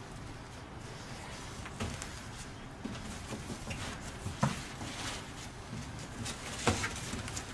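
A cardboard box being handled: lifted, set down and its flaps pulled open, with papery rustling and a few sharp knocks, the loudest about halfway through and again near the end.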